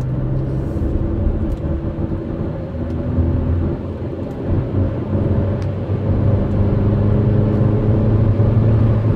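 Diesel car engine accelerating hard, heard from inside the cabin, its pitch shifting a few times and the sound growing louder toward the end.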